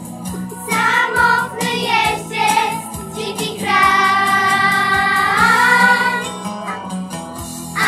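A song with singing over an accompaniment: short sung phrases, then one long held note in the middle that bends upward near its end.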